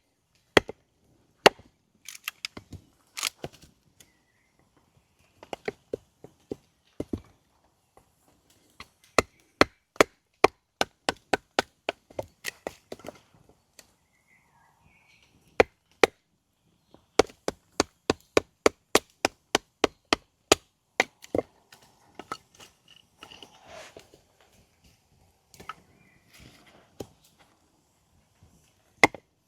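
Wood being chopped or split, a run of sharp wooden strikes at times about two or three a second, with short pauses between the runs.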